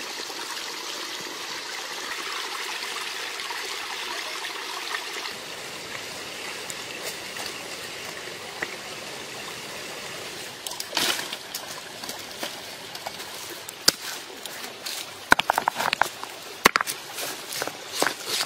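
Shallow stream water trickling and splashing while a whole chicken is washed in it. After about ten seconds the water sound drops and a series of sharp knocks follows, with a quick run of them midway through the second half: a knife striking against a stone.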